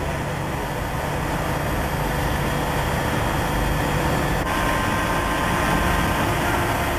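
Steady machine hum over an even background noise.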